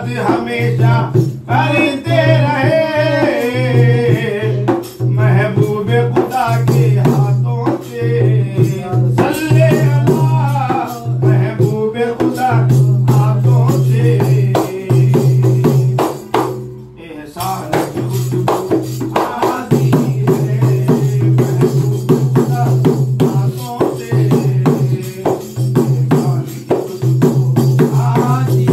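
A man singing while beating a hand-held frame drum in a steady rhythm. The voice and drumming break off briefly about seventeen seconds in.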